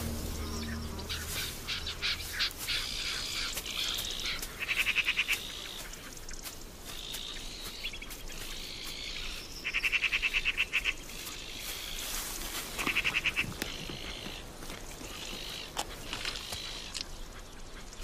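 Wild animal calls: three bursts of a rapid pulsed trill, each about a second long, among scattered chirps and faint clicks.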